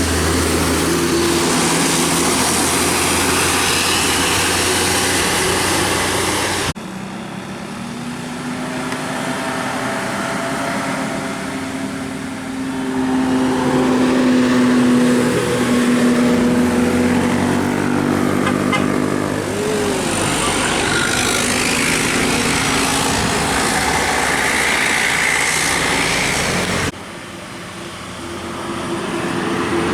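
Tour buses sounding basuri horns, multi-tone musical air horns playing tunes in held notes that step from pitch to pitch, over bus engine and traffic noise. The sound changes abruptly twice, from one clip to the next.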